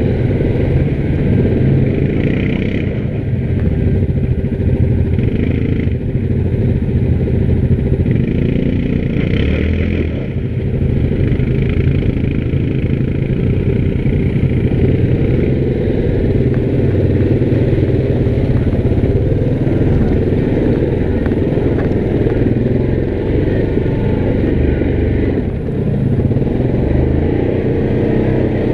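Yamaha Grizzly 700 ATV's single-cylinder four-stroke engine running steadily under way, with small dips in level about ten seconds in and again near the end.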